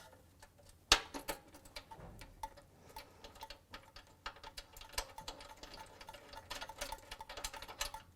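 Light metallic clicking and tapping, with one sharper knock about a second in, as engine mounting bolts and spacers are fitted under a mower engine by hand.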